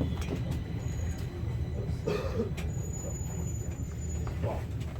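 Stockholm metro train running inside the carriage: a steady low rumble, with a thin high tone for a second or so near the middle.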